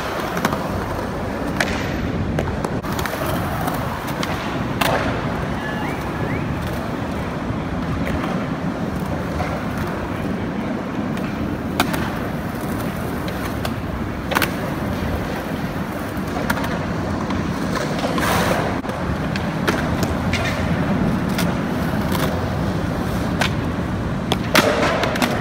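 Skateboard wheels rolling on concrete skatepark ramps, a steady rumble broken every few seconds by sharp clacks of the board and trucks hitting coping and ground.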